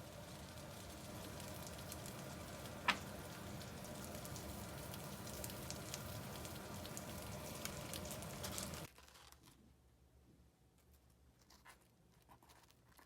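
Food sizzling in a frying pan, with one sharp click about three seconds in. The sizzling cuts off suddenly about nine seconds in, leaving a few faint taps.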